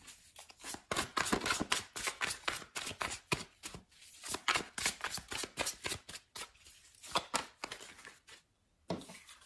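A deck of tarot cards being shuffled and handled by hand: a quick, irregular run of crisp card flicks and slaps, with a brief pause near the end.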